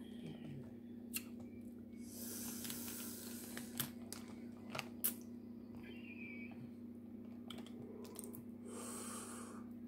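Crab legs being cracked and picked apart by hand: a few sharp shell snaps, with rustling of a plastic bag and chewing between them, over a steady low hum.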